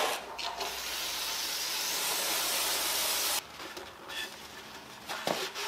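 A steady pressurised spray hiss lasting about three seconds, cutting off suddenly, followed by light handling noise and a short knock near the end.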